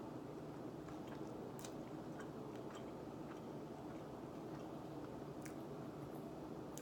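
A person chewing pizza, faint small irregular clicks and smacks of the mouth, over a steady low hum of room noise.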